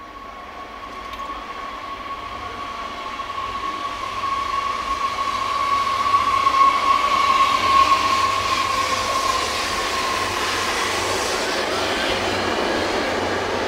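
TER regional multiple-unit train passing along a station platform, growing louder as it comes near. A steady high whine swells while the train goes by and fades away near the end, leaving the rumble of the passing carriages.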